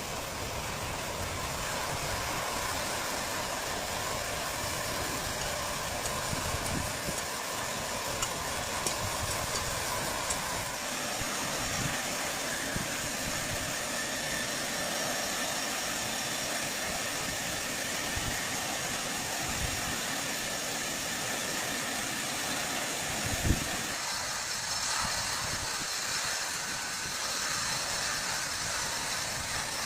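Chainsaw running steadily as it cuts wood, with a single sharp knock about two-thirds of the way through.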